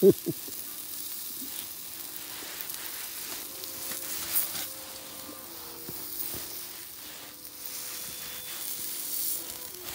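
Steak sizzling on the grill grate of a Firebox stove over hot wood coals, a steady hiss with a sharp knock at the start and a small click about four seconds in.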